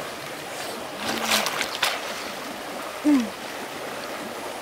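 Stream water running steadily, with splashing about a second in and a brief low sound falling in pitch about three seconds in.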